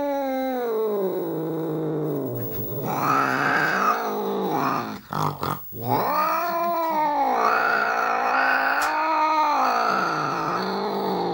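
Angry cat growling and yowling in long, drawn-out wails that slowly rise and fall in pitch, with a short break about five seconds in. It is a warning growl from an agitated cat.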